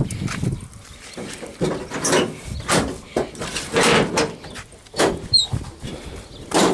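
Knocks, scrapes and creaks of an old AP-4045 loader's rusty steel cab as someone climbs in through the door: about half a dozen separate bangs, with a short high squeak about five seconds in.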